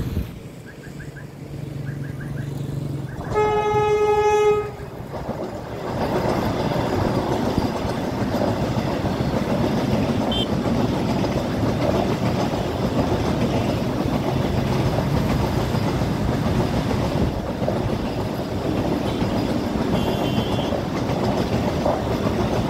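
Vande Bharat Express electric train sounding one steady horn blast of about a second and a half, then the steady rumble and rush of the train running past on the rails.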